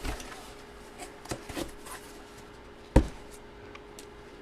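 Hands handling trading cards and packaging on a table: a few light taps and rubs, and one sharp knock about three seconds in.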